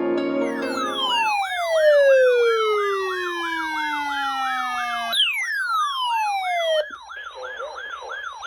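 Electronic siren yelping rapidly, about three cycles a second, under a long tone that falls steadily in pitch over about four seconds. A second, shorter falling sweep starts about five seconds in; it cuts off near seven seconds in, and the yelp carries on more quietly.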